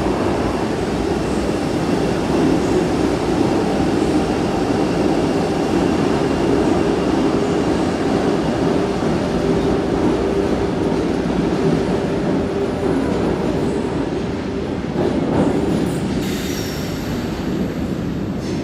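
Tangara double-deck electric train running out of an underground platform, a continuous rail rumble with some wheel squeal, echoing in the station, easing off slightly near the end as the last car goes into the tunnel.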